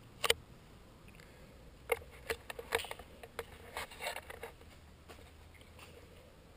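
Irregular light clicks and taps from a handheld camera being handled and carried: one sharp click just after the start, then a scattered run of taps from about two to four and a half seconds in, over a faint steady hum.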